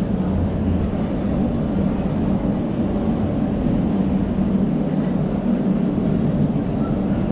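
Steady low rumble of a large hall's background noise, with no distinct events.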